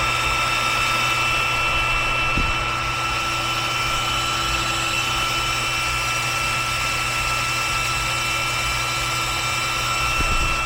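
Power drill running at a steady high speed, a constant whine over a rushing noise, used to clean rust off gas furnace burners.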